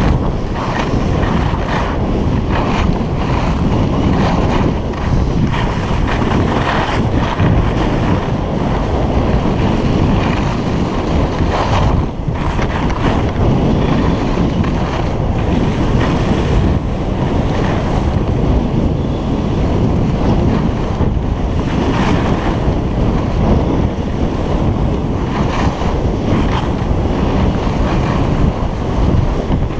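Wind buffeting the microphone during a fast downhill ski run, a steady loud rumble and flutter, with the skis hissing and scraping over hard-packed snow.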